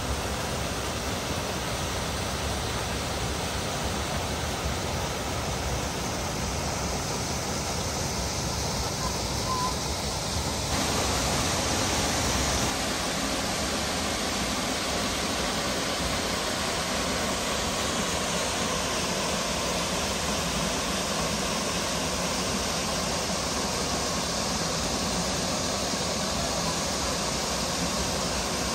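Muradiye Waterfall rushing: a steady roar of falling water. Its tone shifts abruptly twice: it turns brighter and slightly louder about eleven seconds in, then loses some of its deep rumble about two seconds later.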